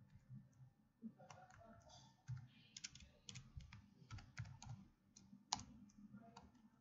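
Faint computer keyboard typing: irregular keystrokes as a command line is typed and entered.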